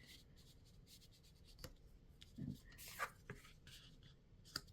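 Faint rustling and a few light taps of oracle cards being handled and turned over on a table.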